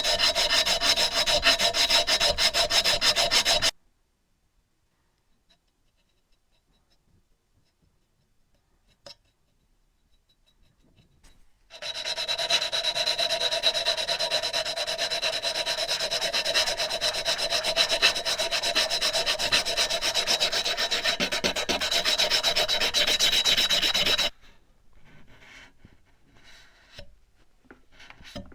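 Abrasive sanding of a steel chisel, a loud, steady, harsh rubbing in two stretches, the first about four seconds and the second about twelve, each cutting off suddenly. Near the end come a few faint taps.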